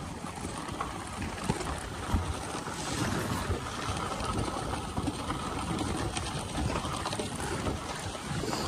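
Dog sled gliding over packed snow: a steady hiss of the runners and rushing air, with a few small knocks from the sled.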